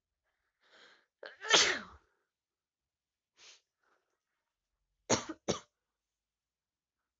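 A person with a head cold sneezing: a faint in-breath, then one loud sneeze about a second and a half in, a faint sniff, and two short sharp bursts in quick succession about five seconds in.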